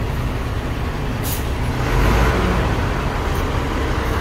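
Diesel bus engines idling, a steady low rumble that grows louder about two seconds in, with a short hiss of released air-brake air about a second in.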